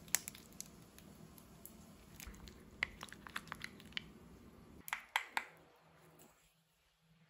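Scattered light clicks and taps of kitchen utensils and dishes being handled while cooking, in small clusters, over a faint steady hum.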